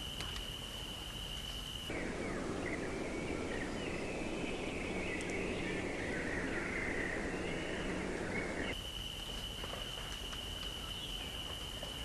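A steady high insect trill, cricket-like. About two seconds in it gives way to a mix of twittering bird calls over a rushing background noise. The insect trill returns near the end.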